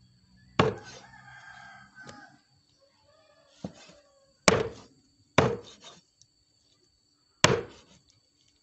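A heavy cleaver chopping through raw meat onto a wooden log chopping block: four sharp chops at uneven intervals, with a lighter knock among them. A rooster crows about a second in.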